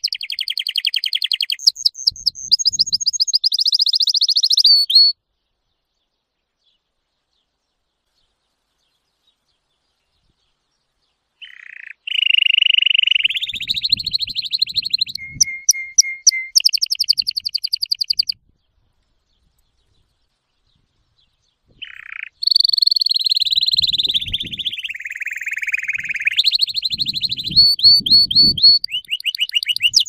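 Domestic canary singing a fast song of rolls and trills, each a string of rapidly repeated notes, the phrases jumping between higher and lower pitches. The song stops dead about five seconds in and resumes near eleven seconds, then stops again around eighteen seconds and resumes about twenty-two seconds in.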